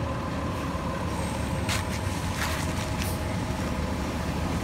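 A New Flyer Xcelsior XDE40 diesel-electric hybrid bus drawing near with a steady engine rumble. Several short hisses come about two to three seconds in.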